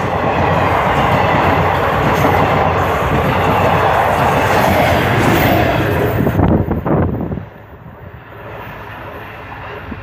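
Diesel multiple unit passenger train running past close by at speed, its wheels clattering over the rail joints in a dense rush of noise. The sound drops sharply about seven seconds in.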